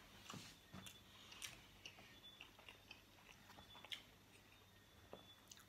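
Faint close-up chewing of pepperoni pizza, with scattered small wet clicks and mouth sounds.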